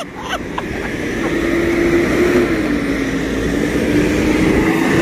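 Semi-truck approaching and passing close by on the street, a steady engine and road drone that grows louder over the first couple of seconds and then holds.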